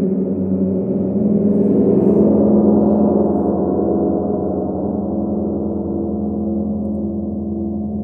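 Large handmade hammered gongs played with small soft mallets, giving a dense, sustained ringing of many overlapping tones with a strong low hum. The sound swells about two seconds in and then slowly fades, the upper tones dying away first.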